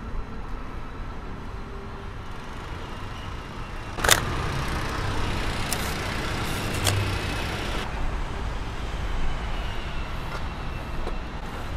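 Steady rumble of road traffic with a sharp click about four seconds in, after which the background gets a little louder; two fainter clicks follow a couple of seconds later.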